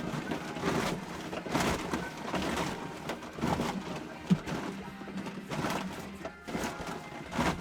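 Background music playing, with one short sharp knock a little over halfway through.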